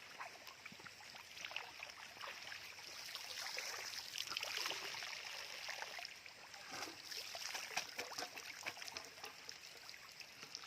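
Shallow water splashing and trickling, with irregular small splashes, as a person wades through flooded paddy water to a trap.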